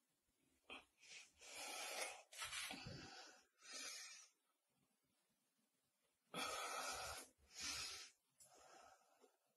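A person breathing audibly: several breaths in and out, each about a second long, in two groups with a pause of about two seconds between.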